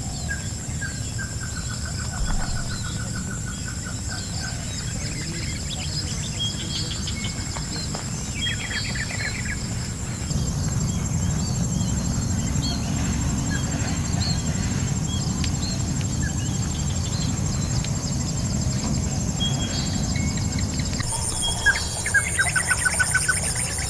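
Rural field ambience: birds chirping and giving rapid chattering trills over a steady high-pitched hum and a low steady background noise. The trills come at the start, about nine seconds in, and loudest near the end.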